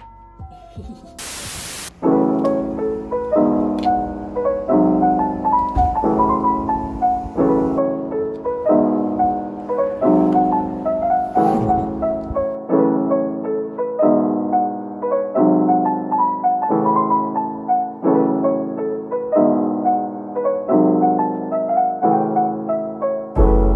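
Background music: a gentle piano track of chords repeating at an even pace, coming in about two seconds in after a short burst of hiss.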